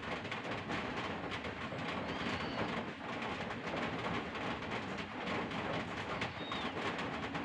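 Birds calling over a steady background hiss, with two short, faint high chirps.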